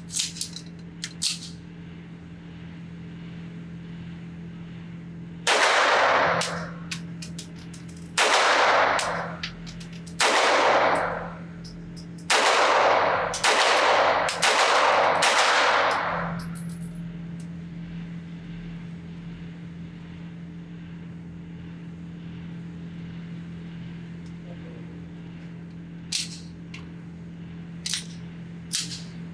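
Fowler Industries Vanta 9 Ported MTO, a ported 9mm 2011-style pistol, fired seven times, each shot followed by a long echo. The first four shots come about two seconds apart, the last three about a second apart. A steady low hum runs underneath, and a few light clicks come near the start and near the end.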